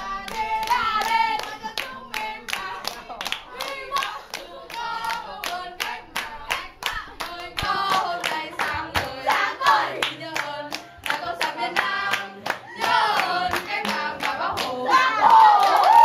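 Young voices singing a song together over steady rhythmic hand clapping that keeps time, about three claps a second.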